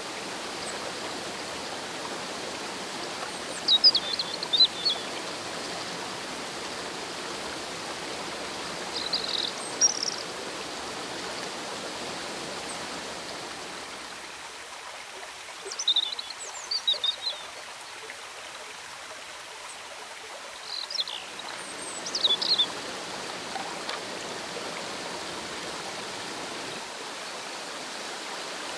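Rushing river water tumbling over a small waterfall, a steady wash of sound. Short, high bird chirps come in small clusters every few seconds.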